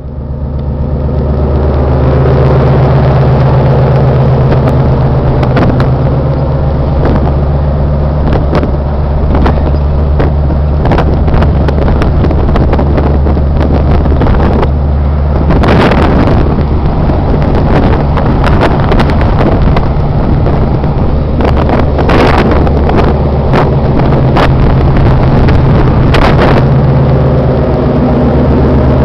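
Tugboat's engine running steadily under way, a loud, low, even drone, with occasional brief rushes of noise over it.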